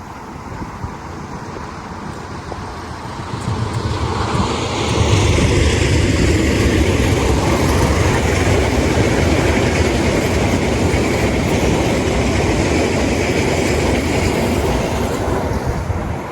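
A train passing close by: it swells in about three seconds in, runs loud with the clatter of wheels on the rails for some ten seconds, and begins to fade near the end.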